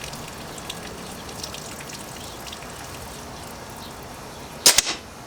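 Bara 1866 lever-action air rifle firing once near the end, a sharp crack with a brief trailing echo, over a steady background hiss.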